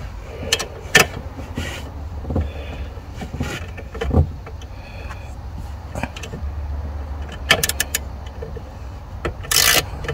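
Scattered clicks, knocks and a metallic jangle of hand tools and parts being handled, with a quick run of clicks about seven and a half seconds in and a louder rasp near the end, over a steady low rumble.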